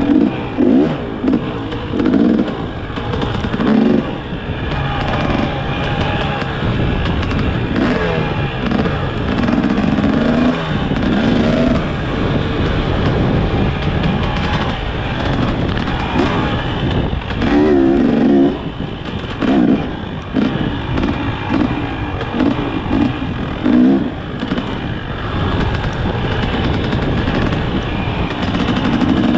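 Dirt bike engine being ridden over rough ground, its revs repeatedly rising and falling as the throttle is worked, over a steady rush of noise.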